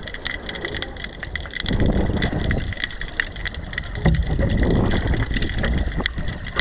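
Wind gusting over the microphone in uneven surges of rumble, with scattered faint clicks and taps.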